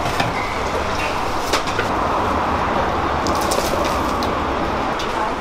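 Steady rushing background noise with a low hum underneath and a few light clicks and knocks.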